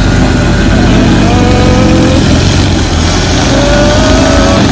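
Short-wheelbase Nissan Patrol off-roader's engine revving hard under load as it climbs a steep, rutted slope. Its pitch climbs over the last second or so.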